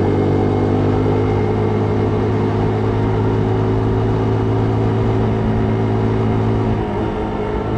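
Vehicle engine running at a steady speed while moving, a constant hum with a haze of wind noise over it. About seven seconds in the engine note shifts and dips slightly, as with a change of throttle or gear.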